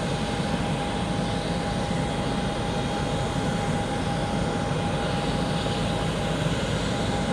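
Steady jet aircraft noise: an even rushing hum with a constant high whine held throughout.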